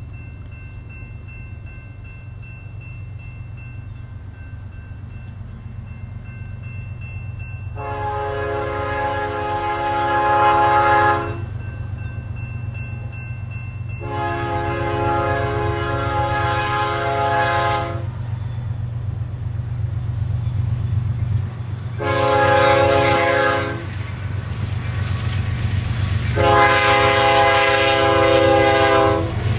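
A CSX freight train's lead diesel locomotive, a GE ES40DC, sounds its air horn in the long-long-short-long pattern of a grade-crossing warning. Under the horn, the low rumble of the approaching locomotives grows steadily louder.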